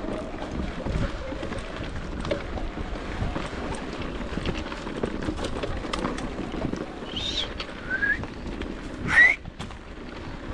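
Electric mountain bike riding over a rough dirt trail: a steady rush of tyre, wind and rattle noise with many small knocks. Near the end come three short rising squeals, the last about a second before the end and the loudest.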